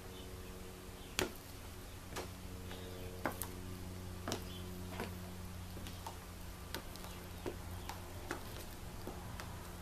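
High-heel pumps' heels clicking on a parquet wood floor as the wearer steps about: about a dozen sharp taps at an uneven pace, the loudest about a second in, over a faint steady hum.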